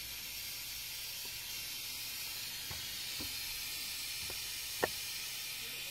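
Steam hissing steadily out of a steam radiator's vent valve, which is leaking and defective. A few faint clicks are heard, with one sharper tick near the end.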